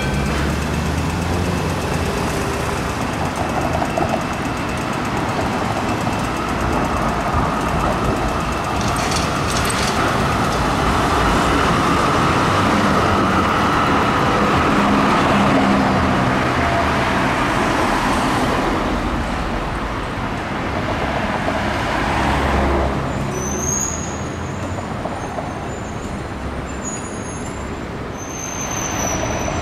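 Melbourne B2-class articulated electric trams running in city street traffic. One rolls past close by, its noise swelling to a peak about halfway through. Thin, high-pitched squeals come in near the end as another tram comes round curved track.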